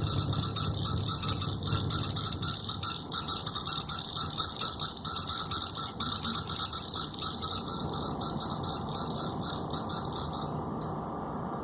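Water running and splashing: a steady noisy wash with fine crackle through it. Its high hiss drops away suddenly near the end.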